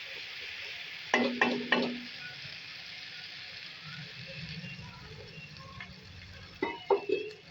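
Onion and ground spices frying and sizzling in hot oil in a kadhai as they are stirred. Three sharp knocks come about a second in and three more near the end, from the spoon striking the pan.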